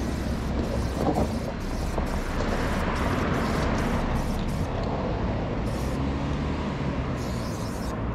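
City street traffic, with a motor vehicle passing and swelling about two to four seconds in.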